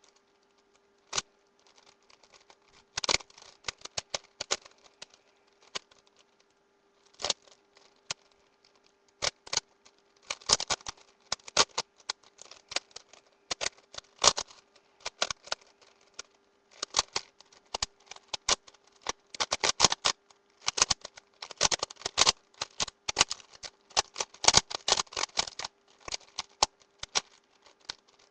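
Plastic puzzle cube being turned fast in a speedsolve: rapid runs of clacking layer turns with short pauses between them, sparser for a few seconds and then almost continuous.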